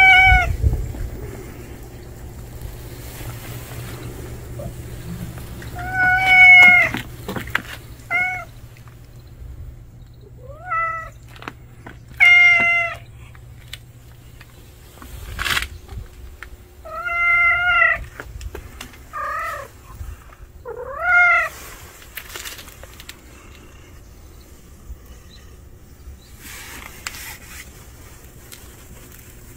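A cat meowing again and again: about eight short meows spread over the first twenty seconds or so, some rising at the end, then they stop.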